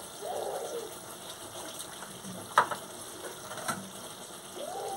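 Thick curry simmering in an aluminium kadai with a low, steady sizzle, and a couple of sharp clinks of a steel spoon against the pan. A small child squeals twice, once near the start and again at the end.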